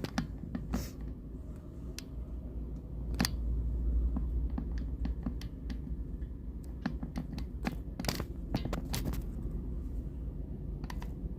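Excavator's diesel engine running with a steady low rumble, overlaid by many sharp clicks and knocks, thickest in a cluster about seven to nine seconds in.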